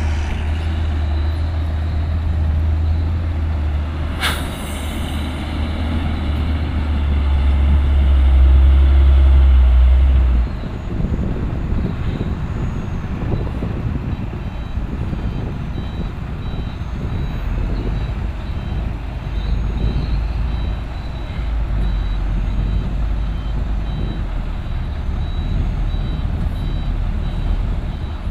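Heavy diesel engines of an excavator and dump truck working: a deep engine drone builds under load for about ten seconds, then drops off suddenly and settles to a steadier run. A brief sharp sound about four seconds in, and a faint, evenly repeated warning beep through the second half.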